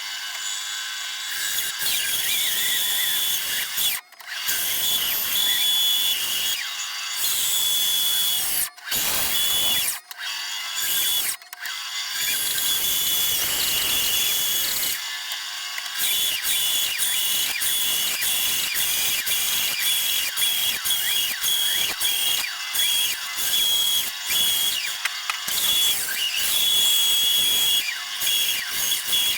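Bandsaw running and cutting through a wooden block, a steady high whine with sawing hiss that breaks off briefly several times.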